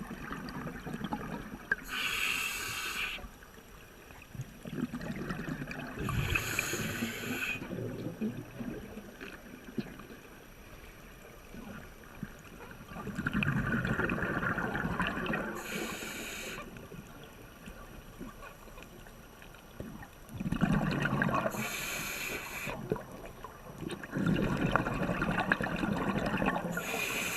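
Scuba diver breathing through a regulator underwater: exhaled bubbles rumble and gurgle in spells every few seconds, with short hisses between them.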